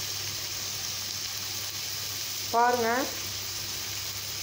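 Sliced green capsicum and onion sizzling steadily in oil in a metal kadai, an even frying hiss. One short voice sound cuts in about two-thirds of the way through.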